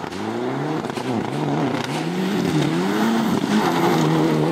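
Mitsubishi Lancer Evolution rally car's turbocharged four-cylinder engine revving hard on a gravel stage, its pitch climbing and dipping several times, over a hiss of tyres on loose gravel.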